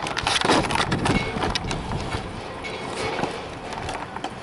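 Footsteps on pavement, a quick uneven run of short clicks and scuffs, with rustling from the handheld microphone as it moves.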